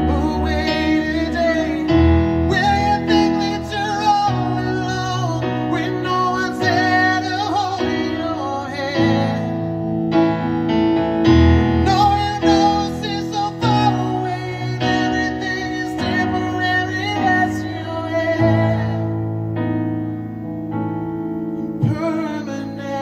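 Live acoustic pop ballad: a man singing over acoustic guitar and sustained keyboard chords, the music softening near the end.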